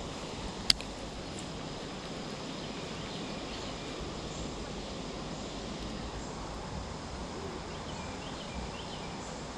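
Steady outdoor background noise by a pond, with one sharp click under a second in as a baitcasting reel is worked.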